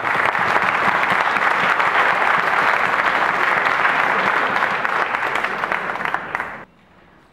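Audience applauding, a steady clatter of many hands clapping that cuts off suddenly near the end.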